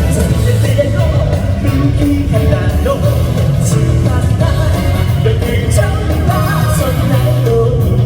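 Loud live J-rock song: a male lead vocal over a driving rock band, recorded from the audience.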